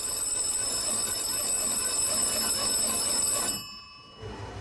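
Old black railway desk telephone's bell ringing continuously for an incoming call, cutting off about three and a half seconds in.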